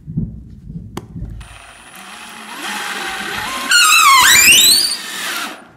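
Electric screwdriver driving a self-tapping screw into a wooden floorboard: a motor whine that builds, then dips and climbs steeply in pitch about four seconds in before stopping near the end. The screw has missed the floor joist, so it will not sink fully into the board.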